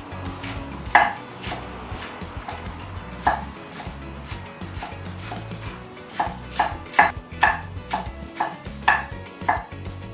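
A cleaver chopping greens on a plastic cutting mat over a wooden board. The blade knocks at uneven intervals at first, then settles into a quicker run of about two strokes a second.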